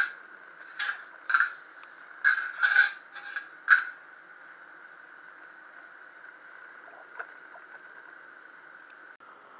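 Chicken gravy for biryani simmering in a pot: about six short pops in the first four seconds, then only a faint steady hiss.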